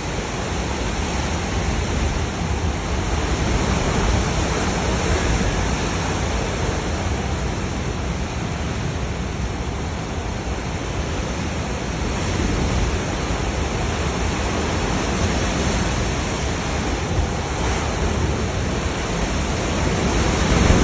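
Hurricane Ian's wind and rain: a loud, steady rushing noise that swells and eases a little.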